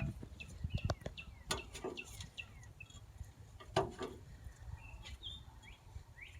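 Small birds chirping over and over in quick, high, down-sliding notes. A few sharp knocks cut through, the loudest about four seconds in.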